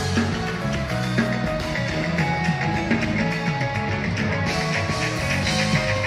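Live band music, with a drum kit and keyboards playing.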